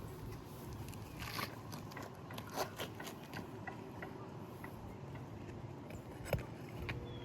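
Asphalt roof shingles being worked by hand: scattered scraping and crackling with sharp clicks, the loudest about two and a half seconds in and again near the end.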